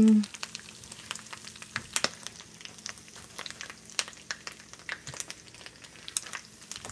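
Chorizo frying in oil in a small pan, sizzling with a steady scatter of small crackles and pops.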